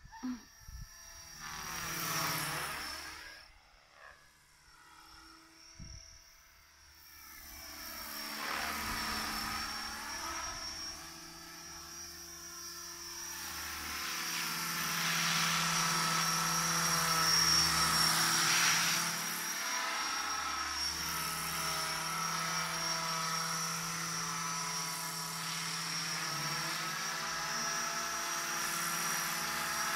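Thunder Tiger AH-1 Cobra radio-controlled scale helicopter flying, its rotors and drive making a steady high whine. The pitch sweeps up and down several times as it passes back and forth. It is fainter a few seconds in and grows louder through the second half as it comes closer.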